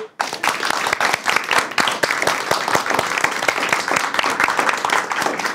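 A small seated group applauding, many hands clapping in a dense steady patter that starts a moment in.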